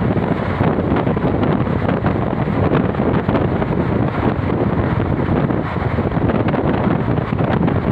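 Wind buffeting the microphone through an open window of a moving vehicle, over a steady travel rumble.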